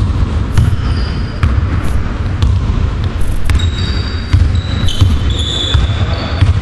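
Basketball dribbled on a wooden gym floor, bouncing about twice a second. From about halfway through, sneakers squeak in short high chirps on the court.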